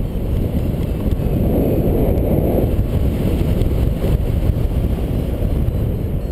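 Wind rushing over the microphone of a harness-mounted camera in paraglider flight: a loud, steady low rumble of airflow, swelling slightly about two seconds in.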